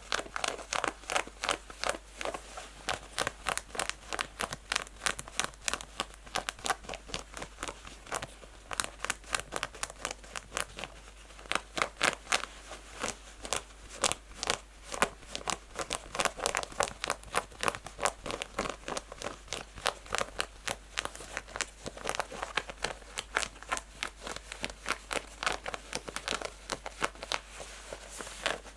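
Natural fingernails scratching fast and hard on textured denim jeans fabric, in rapid strokes of about three to five a second, with no pause.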